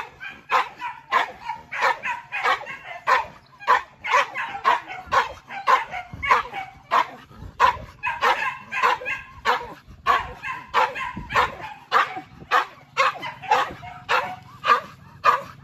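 Hunting dogs barking continuously and rapidly, about two barks a second, with no break.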